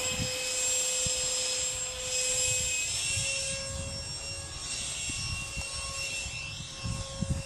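64mm electric ducted fan of a small RC plane whining at high throttle in flight. The pitch steps up slightly about three seconds in, with wind buffeting low underneath.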